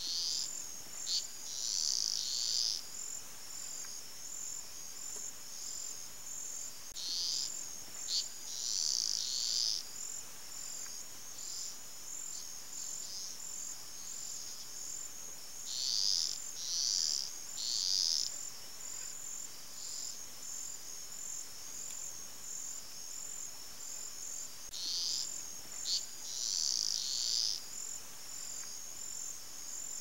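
Insects chirring in a steady, high-pitched pulsing chorus, with groups of three or four louder high bursts coming back about every eight or nine seconds.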